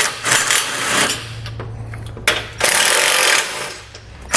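Cordless impact driver running bolts into factory weld nuts, its hammering rattle coming in bursts as the bolts snug down: one at the start, a louder one about two seconds in that fades away, and another starting at the end.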